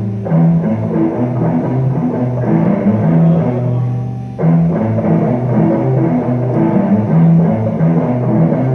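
Rock-style instrumental music with a drum kit and repeated low bass or guitar notes. It fades a little past the middle, then comes back in suddenly.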